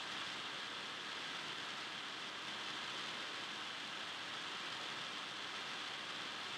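Steady, even background hiss with no distinct events: no ball bounces, shoe squeaks, whistles or voices stand out.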